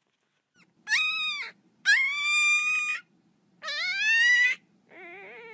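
A dachshund puppy crying behind a gate: four high-pitched, drawn-out whines, the third rising in pitch, the last lower and much quieter.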